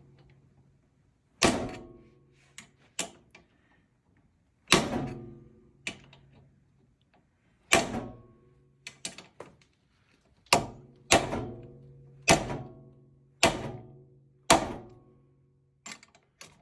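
Hammer blows on a bearing driver, seating a wheel bearing into the axle housing: about ten sharp metallic strikes at irregular intervals, each ringing briefly, with a few lighter taps between them.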